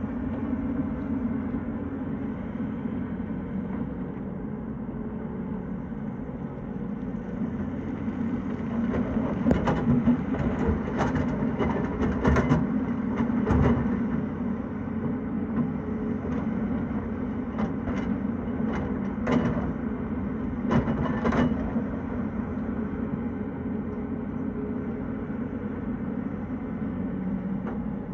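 Tata Hitachi excavator's diesel engine running steadily under load, with a run of sharp clanks and knocks from about a third of the way in until about three quarters through.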